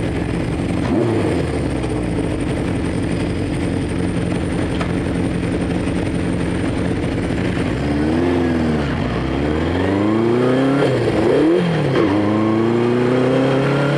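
Honda CB500 Four's air-cooled inline-four engine idling steadily, then pulling away about eight seconds in: the revs rise and drop back several times through quick gear changes, then climb steadily.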